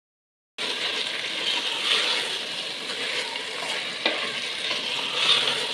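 Soaked split urad dal (daal maash) sizzling steadily as it roasts in oil in an aluminium pressure-cooker pot, with a few light knocks of the stirring spoon. The sizzle cuts in suddenly about half a second in.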